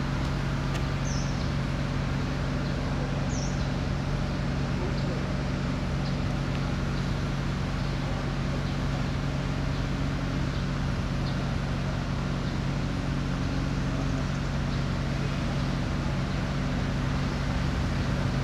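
Steady city traffic noise with a constant low drone, and two short high chirps, about one and three and a half seconds in.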